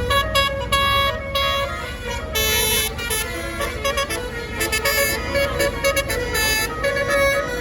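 Bus 'telolet basuri' multi-tone horn playing a fast melody of shrill notes that step up and down, over the low running of a bus engine.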